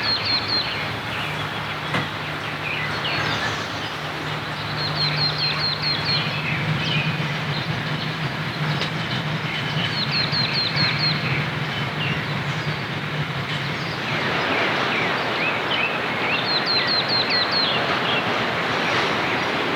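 Steady rain falling, getting heavier about two-thirds of the way through. A bird repeats a quick run of high chirps every five seconds or so, and a low steady hum runs underneath for the first two-thirds.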